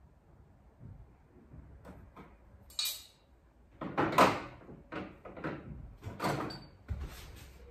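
Metal cutlery clinking and clattering as knives are taken from a pile and laid down beside plates on a table: a handful of separate clinks, the loudest about four seconds in, one with a brief metallic ring.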